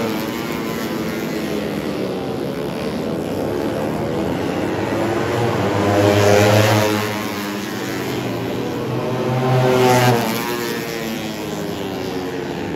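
Four-stroke 150cc underbone race motorcycles passing at speed, their engines rising and falling in pitch as they go by, loudest about six and ten seconds in.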